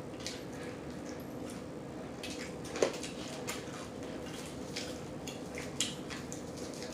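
Close-miked chewing of crunchy fried chicken wings: scattered wet mouth smacks and crunches, with one louder click just before three seconds in, over a faint steady hum.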